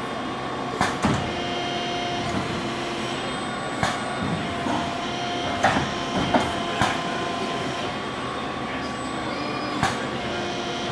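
Robotic tube-bending cell with a Yaskawa robot arm and a SOCO SB 90x8A MRV tube bender running: a steady machine whine of several held tones that come and go. It is broken by sharp clacks: a pair about a second in, several between four and seven seconds, and one near the end.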